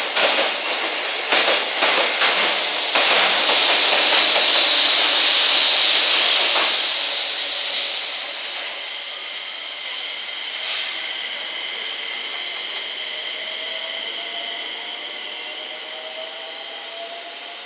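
Container wagons of a freight train clattering over rail joints. The rear helper locomotive, a JR Freight EF210-300 electric, then passes with a loud rushing hiss about three to eight seconds in, and fades as it pulls away, leaving a faint whine that slowly rises in pitch.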